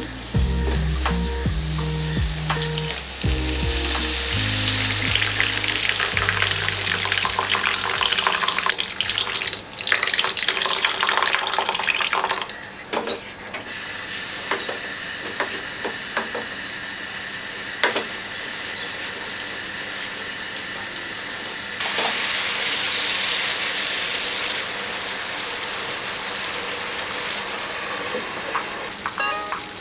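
Vegetables and spices frying in hot oil in a pan, a steady sizzle with the scrape and tap of a spatula as they are stirred. About halfway through the sizzle turns steadier and smoother.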